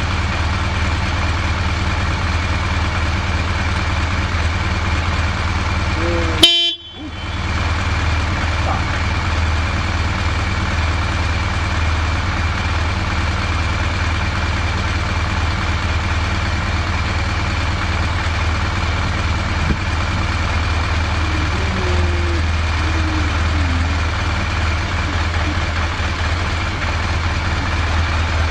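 BMW R1200GS boxer-twin engine idling steadily and evenly, the stable idle of a healthy engine with no abnormal noises. About six seconds in, a brief horn beep, then a momentary dropout before the idle carries on.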